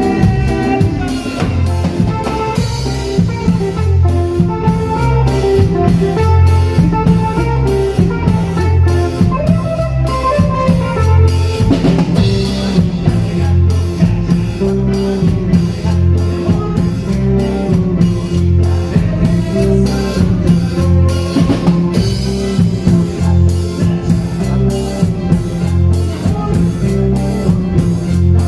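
A live band playing, with drum kit, bass and guitar over a steady beat.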